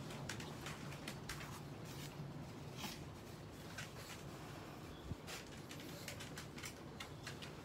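Small dogs' claws making light, irregular clicks and scratches on a wire crate lined with cardboard, over a faint, steady low hum.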